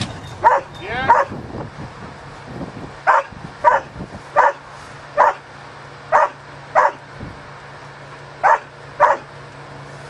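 A dog barking about ten times, mostly in quick pairs, over a faint steady low hum.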